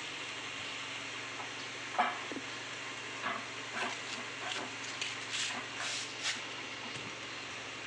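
Small metal clinks and knocks as a steering column with its electric power-steering motor is handled and fitted onto the rack-and-pinion steering, about a dozen in all from about two seconds in until past the middle, the first the loudest. A steady hiss runs underneath.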